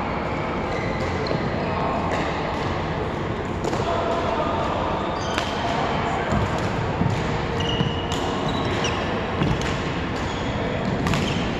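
Badminton rally: sharp racket strikes on the shuttlecock every two to three seconds, with short squeaks of shoes on the court floor, echoing in a large sports hall.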